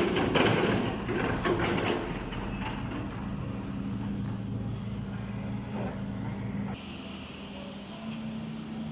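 Backhoe loader's diesel engine running steadily, with a clatter of knocks and scraping in the first two seconds. The engine note shifts a little near the end.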